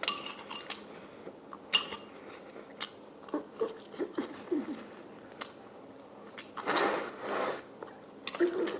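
Eating and table noises: metal cutlery clinks against a dish twice with a short ring, the first right at the start and the second under two seconds in, then small ticks of utensils and food handling, and a rustling hiss lasting about a second near the end.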